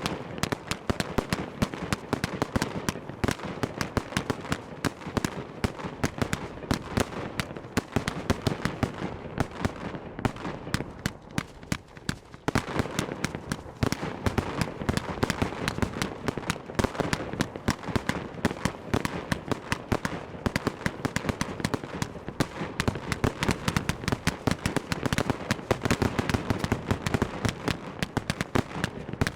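Fireworks display, with bursts and bangs going off in rapid, near-continuous succession and a brief lull about eleven to twelve seconds in.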